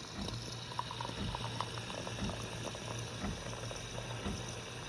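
Ariete ART1451 bean-to-cup coffee machine frothing milk from its milk carafe for a cappuccino: a steady low pump hum with irregular soft crackles and pops of frothed milk being dispensed.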